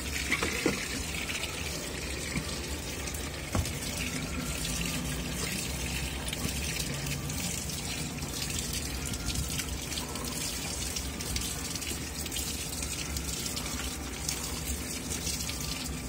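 LG 17 kg top-load washing machine filling: water runs steadily from the inlet through the detergent dispenser drawer and splashes into the drum, with a couple of light knocks in the first few seconds.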